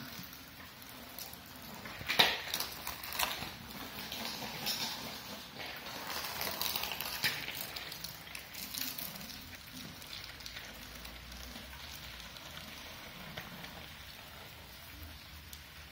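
Rain falling on wet pavement, with a child's small bicycle on training wheels rolling and splashing across a wet concrete driveway. A sharp clack about two seconds in is the loudest sound, followed by a few more clicks and rattles over the next several seconds.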